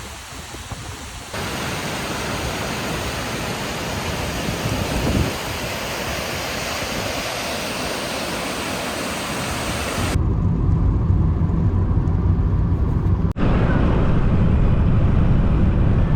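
Steady rush of falling water, an even hiss spread across all pitches. About ten seconds in it cuts abruptly to a deep low rumble.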